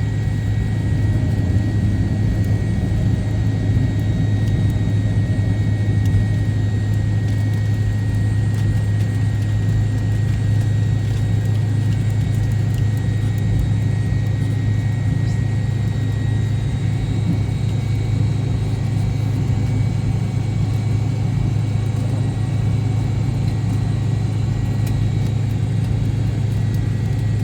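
Steady cabin noise of an MD-88 airliner with its tail-mounted Pratt & Whitney JT8D turbofans running: a deep, even rumble with a faint high-pitched whine over it.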